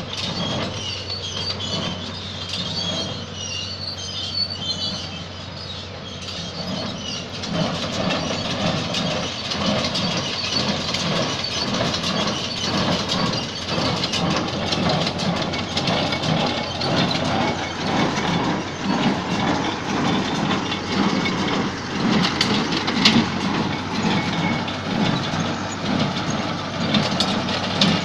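John Deere 342 small square baler at work behind a T-40 tractor: the baler's plunger and knotter mechanism clatter in a fast, steady rhythm over the steady hum of the tractor's diesel engine as hay is packed into bales. The clatter gets louder about a quarter of the way through.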